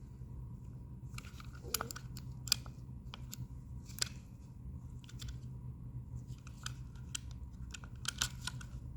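Irregular small clicks and taps of plastic parts of a Roomba S9 wheel module being handled while a small spring is worked back into place, over a steady low hum.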